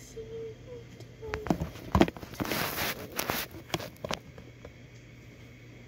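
Handling noise from a phone camera being picked up and turned: a cluster of knocks and clicks with a stretch of rustling in the middle, the sharpest knock about two seconds in.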